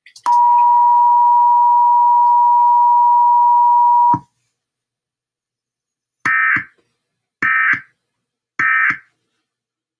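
Emergency Alert System tones: a steady single-pitch attention tone lasting about four seconds, then, after a two-second pause, three short digital data bursts about a second apart, the end-of-message code that closes an EAS alert.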